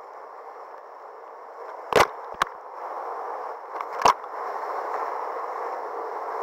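Whitewater rapid rushing around a kayak, the rush growing louder as the boat drops into the rapid. Sharp knocks come about two seconds in, again just after, and once more about four seconds in.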